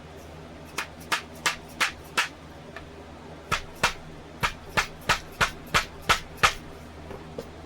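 Sharp tapping on an Allen key used as a punch to drive out a sword's stubborn mekugi (handle peg): about five quick taps, a short pause, then about nine more. The peg does not come loose.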